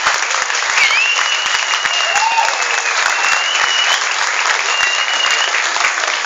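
Audience applauding steadily, with a few long, high-pitched tones drawn out over the clapping.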